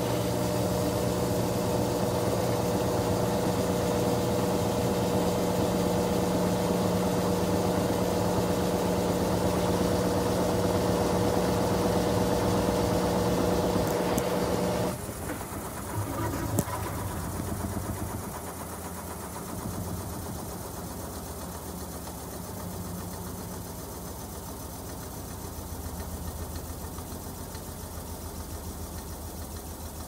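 Whirlpool top-load washer's drive motor and belt drive running with a steady hum, which cuts out abruptly about halfway through. A single sharp click follows a second or so later, then the machine runs on more quietly and unevenly.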